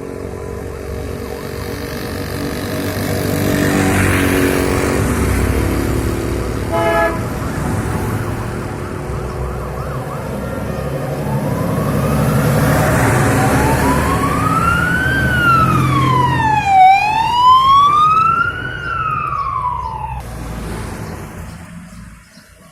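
Vintage vehicles driving past with their engines running, and a brief horn blast about a third of the way in. Then a siren wails, rising and falling in pitch about every two seconds, and cuts off suddenly near the end.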